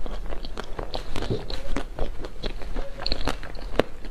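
A person biting into and chewing a chocolate-coated cake, close-miked: a quick, irregular run of crisp crunching clicks.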